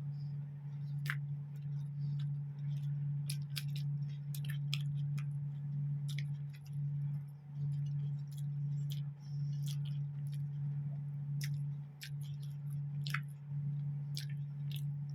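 Eating sounds from someone chewing mutton curry with roti: scattered short wet clicks and smacks of the mouth, a dozen or more, over a steady low hum.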